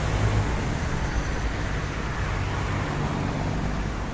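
Steady traffic on a wet multi-lane road: the low rumble of car engines under a continuous hiss of tyres on rain-wet pavement.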